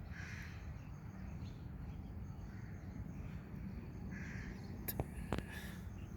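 Short, harsh animal calls repeated about four times, a second and a half to two seconds apart, over a steady low rumble, with two sharp clicks about five seconds in.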